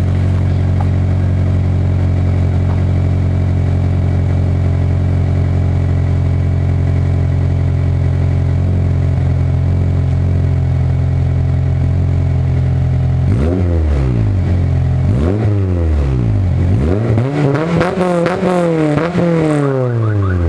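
Acura RSX's 2.0-litre four-cylinder engine through a GReddy 70 mm full titanium exhaust with no resonator, idling steadily, then revved several times from about two-thirds of the way in, the last blips coming quickly one after another.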